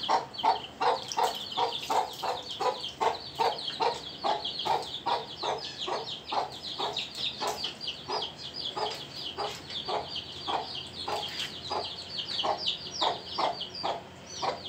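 Domestic chickens clucking in a steady run of short clucks, about three a second, with high falling chirps over them.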